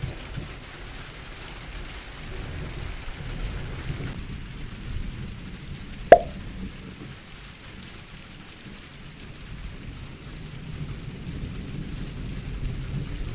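Low rumble of thunder with a light patter of rain, and one sharp knock with a brief ring about six seconds in.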